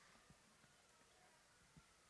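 Near silence: faint room tone, with two very faint low bumps about a second and a half apart.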